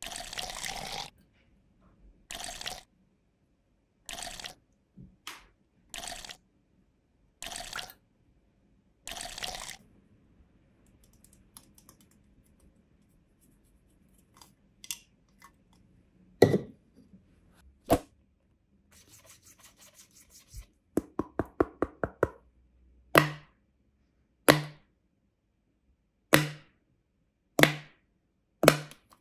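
ASMR handling sounds of plastic toys over a metal muffin tin: a series of short hissy, scraping bursts, then scattered faint clicks and a quick run of clicks, and near the end five sharp taps, each with a low thud.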